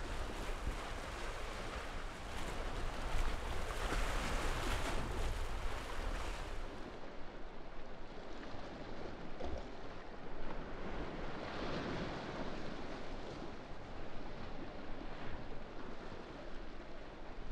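Wind on the microphone over the wash of sea waves: a steady rushing noise, fuller and brighter for the first six or seven seconds, then duller.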